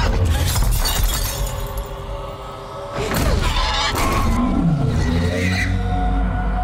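Horror-film soundtrack: music with a low rumble and loud crashing hits near the start and again about three seconds in, with falling, growl-like pitch sweeps after the second hit, settling onto a held tone near the end.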